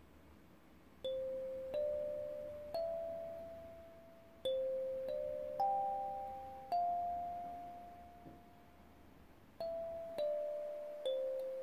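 Kalimba with a clear acrylic body and metal tines, thumb-plucked slowly, one note at a time, each note ringing and fading. The playing starts about a second in, and a longer held note near the middle is followed by a pause of a few seconds before the melody resumes.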